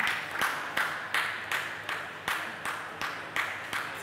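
Spectators clapping in unison in a steady beat, close to three claps a second.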